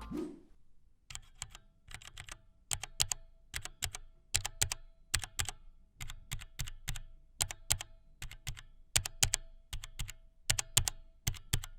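Mechanical keyboard with Cherry MX Red linear switches being typed on: an uneven run of quick keystrokes, starting about a second in.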